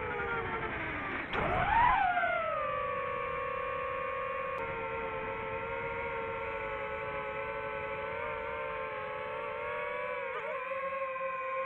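FPV drone's electric motors and propellers whining. The pitch sinks, then climbs steeply to its loudest about two seconds in as the throttle is opened, then eases back to a steady hover-like pitch with a brief wobble near the end.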